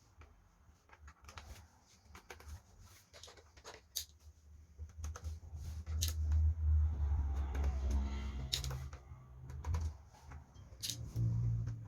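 Scattered small clicks and taps of screws being taken out of an Acer Aspire E5-511 laptop's plastic bottom case, with low bumping from the laptop being handled.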